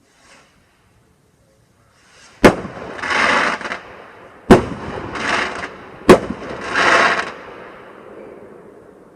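Fireworks exploding: three sharp bangs about two seconds apart, each followed by a short burst of crackling hiss, with the sound fading away afterward.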